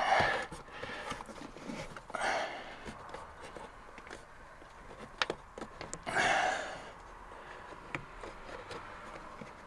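Quiet handling noise of a rubber sleeper boot being pressed by hand into the cab-to-sleeper opening: faint rubbing with a couple of sharp clicks, and a few short breaths or vocal sounds from the effort.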